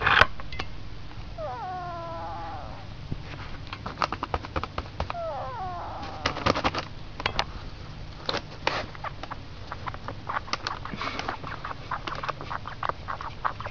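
Duck making snore-like calls: two calls that slide down in pitch, each about a second long, a few seconds apart. A sharp click comes at the start, and quick runs of short clicks follow through the rest.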